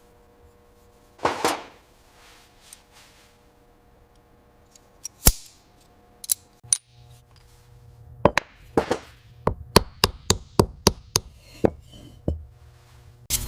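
Sharp knocks and taps: a few scattered strikes, then a quicker run of about three a second in the last few seconds. There is a brief swish about a second in.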